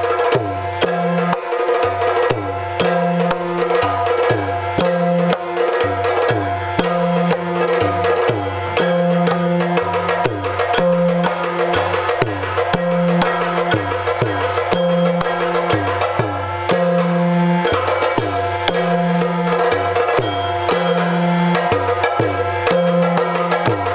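Yakshagana accompaniment playing an instrumental dance passage: fast, dense drumming over a steady held drone, with a low two-note drum pattern repeating every couple of seconds.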